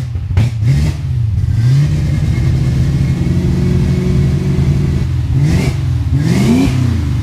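Fox-body Ford Mustang's modified V8 running with a lumpy idle, revved and held for a few seconds, then blipped twice near the end.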